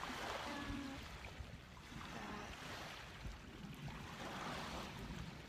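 Small waves washing on a beach, the noise swelling and easing every second or two, over a low wind rumble.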